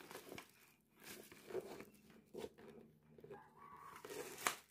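Faint handling noise from a full-face motorcycle helmet being turned over in the hands: light rustles and soft knocks, with a sharp click near the end.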